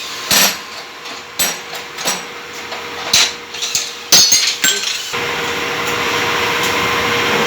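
Metal tools and engine parts clinking and tapping, a string of sharp metallic clinks over the first five seconds. About five seconds in, a steady hiss with a faint hum starts and keeps going.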